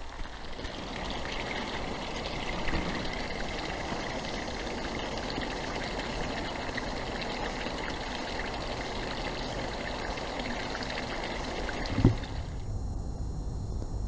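Small woodland stream trickling and running, a steady rush of water. A single loud thump comes about twelve seconds in, and the water sound cuts off abruptly just after.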